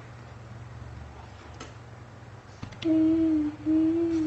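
A person humming two held notes on nearly the same pitch, a short one about three seconds in and a longer one right after, over a steady low background hum.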